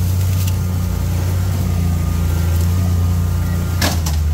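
Steady engine drone of a side-by-side UTV driving through brush, heard from its cab. A single sharp snap or knock comes near the end.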